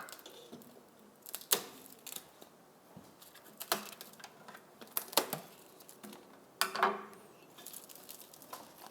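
Scissors snipping through packing tape: four or five separate sharp snips a second or so apart, with quiet handling and crinkling between.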